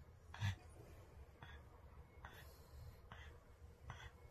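Flat-faced pug breathing through its open mouth: faint, hoarse breaths about once a second, with a short louder breath about half a second in.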